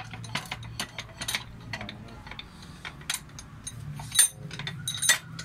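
Irregular metal clicks and clinks of small parts and tools being handled on a diesel injection pump during reassembly, with two louder knocks near the end, over a steady low hum.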